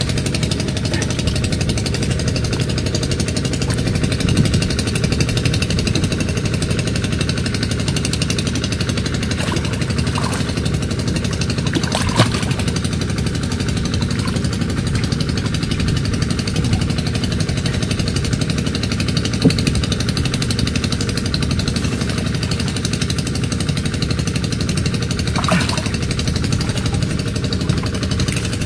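A small engine running steadily, with a few faint clicks.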